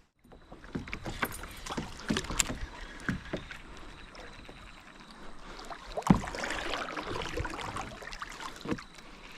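Scattered knocks and bumps on a fishing kayak over light water noise, with one sharper knock about six seconds in.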